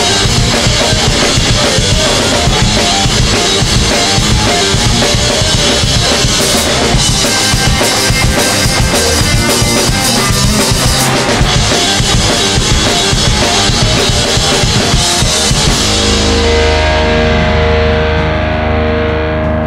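Live band playing loud, with a full drum kit driving hard under the other instruments. About sixteen seconds in the drums stop and a held chord rings on steadily as the song ends.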